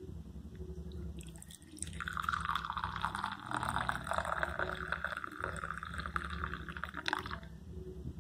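Coffee poured from a vacuum flask into a ceramic cup. The stream starts about two seconds in, runs steadily for about five seconds, and stops shortly before the end.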